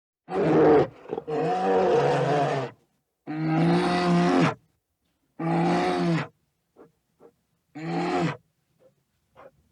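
An animal calling five times, each call a drawn-out pitched cry between half a second and a second and a half long, with short silent gaps between them.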